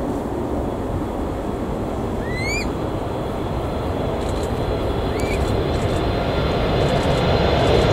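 Boeing 747-8F's four GEnx turbofan engines on final approach, a steady rumble that slowly grows louder as the jet nears. A bird gives a short rising whistled call twice, about three seconds apart.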